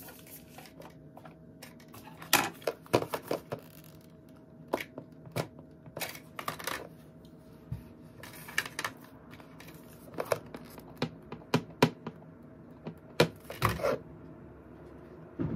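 Irregular sharp clicks and taps, with quieter handling noise between them, from an iPhone and its plastic and cardboard packaging being handled on a wooden table.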